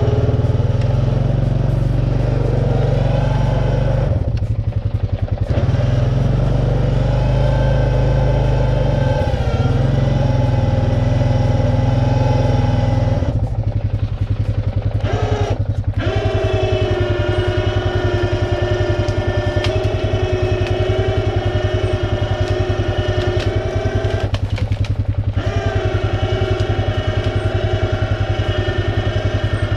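Four-wheeler engine running steadily while its electric winch whines, reeling in a chain pulling a tree. The higher whine cuts out briefly three times, about a quarter, halfway and four-fifths of the way through, and the engine keeps running underneath.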